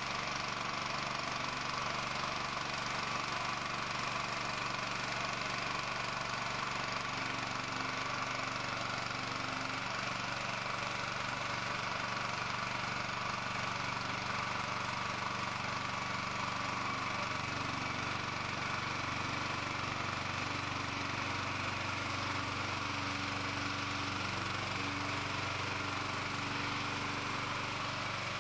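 An engine running steadily at constant speed, with a slight change in its low hum about two-thirds of the way through.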